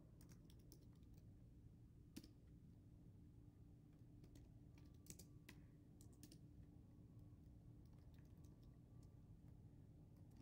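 Faint computer keyboard typing in short runs of keystrokes, with one sharper click about two seconds in, over a low steady hum.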